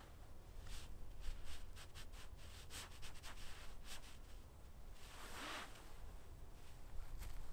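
Faint rustling and light clicks of a camouflage half-shelter tarp and its cord being fastened to a ridgeline by hand, with a longer swish of the fabric about five seconds in.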